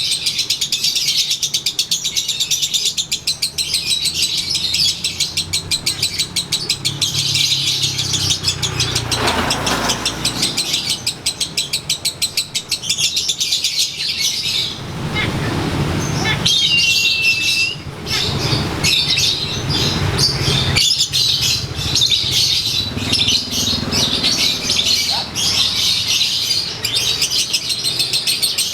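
A lovebird chattering in a long, fast, unbroken run of high chirps, the 'ngekek' song of a 'konslet' lovebird. It pauses briefly about halfway, gives a short whistle, then carries straight on.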